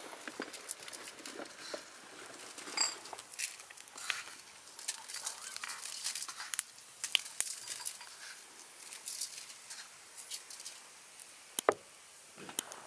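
Salt sprinkled by hand over raw eels in a stainless-steel colander: a scattered patter of fine ticks and crackles, with two sharper clicks near the end.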